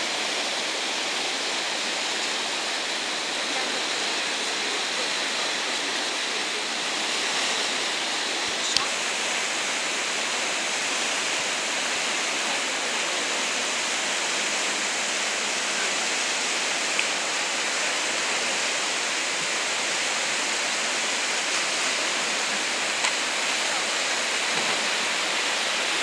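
Whitewater river rapids rushing: a steady, even sound of fast water. A few short ticks sound over it.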